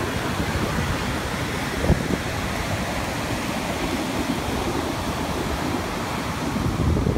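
Ocean surf breaking and washing up the beach in a steady rush, with a low rumble of wind on the microphone.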